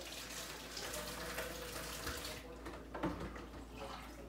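Water running from a kitchen faucet into the sink, with a brief break about two and a half seconds in.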